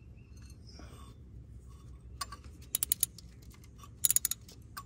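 Sharp metallic clicks from a 13 mm wrench working the timing belt tensioner bolt as it is loosened to let the tensioner swing out: one click about two seconds in, then quick clusters of clicks a little before three seconds and again around four seconds.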